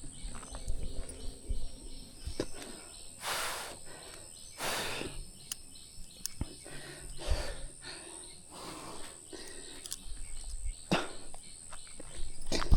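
Forest ambience: a steady high-pitched insect chorus, with several brief rustling noises and a few sharp clicks.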